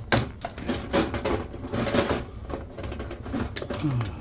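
Irregular clicks, taps and rattles of a small socket driver working screws and fittings out of a computer case, with a denser rattling run about a second in.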